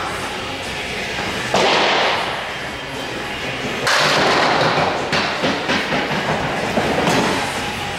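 Candlepin bowling alley clatter: two sudden crashes, about one and a half seconds in and again about two seconds later, each fading over a second, over a steady rolling rumble.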